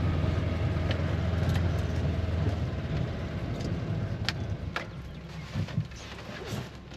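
Ranger utility vehicle's engine running steadily with a low hum, which drops away about three seconds in. A few sharp clicks and knocks follow.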